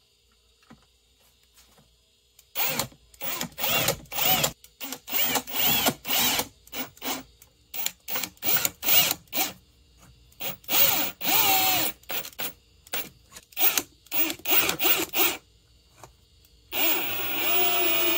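A 24-volt brushless cordless drill driving screws through a plastic manifold's mounting ears into plywood, run in many short trigger bursts with the motor speeding up and slowing down, then one longer run near the end. The short bursts keep the screws from being over-tightened and cracking the ears.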